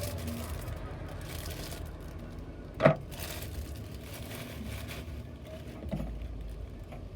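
Silicone pop-it fidget toy being pressed: one sharp pop about three seconds in and a softer one near six seconds, over a low steady background hum.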